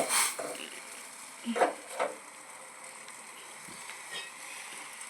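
Pan of herbal decoction on the stove hissing with a low steady sizzle, its water nearly boiled away, with two short knocks about one and a half and two seconds in.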